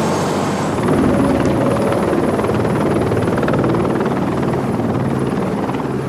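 Eurocopter AS350 Écureuil single-engine helicopter lifting off and flying away, its rotor beating steadily over a thin high turbine whine.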